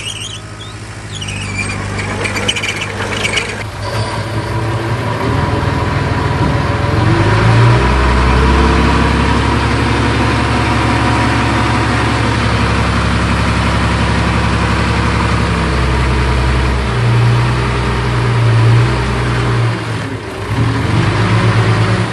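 Heavy diesel engine of earthmoving machinery working under load. It revs up about a third of the way in, runs loud and steady, and swells again near the end. High-pitched squeaking in the first few seconds.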